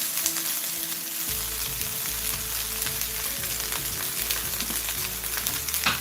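Garlic sizzling in hot oil in a pan, with a steady hiss and small ticks as it is stirred.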